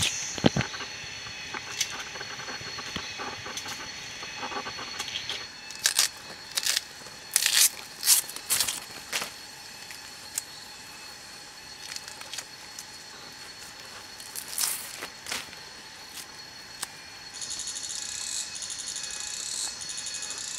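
Thin plant stems being peeled and snapped by hand, with irregular sharp cracks and tearing, loudest in clusters through the middle. Insects whine steadily in the background, and a rhythmically pulsing insect call starts near the end.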